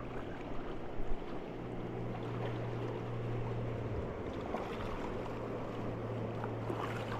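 Steady rush of river water flowing around a raft on the Hiwassee River, with a few small knocks.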